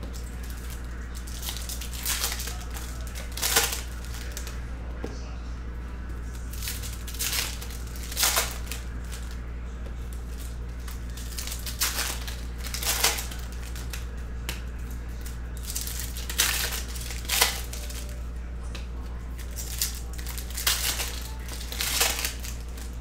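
Foil trading-card pack wrappers crinkling and tearing as packs are opened and the cards handled. The crinkles come short and sharp, every second or two, over a steady low hum.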